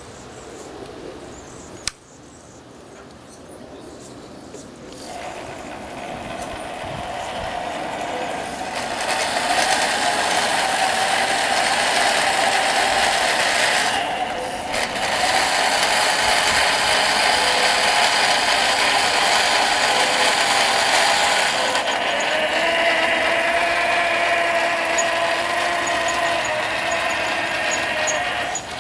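Live-steam R/C model tank with twin steam engines driving its geared tracks: a steady hissing, whirring mechanical run with a whine through it. It builds up from quiet over the first several seconds and dips briefly about halfway through. A single sharp click comes about two seconds in.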